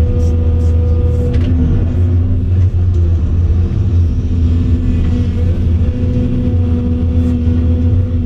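Volvo EC700CL excavator's diesel engine running steadily under working load, heard from inside the cab as a deep, loud drone. A higher steady hum above it fades about a second in and comes back about halfway through as the boom and bucket move.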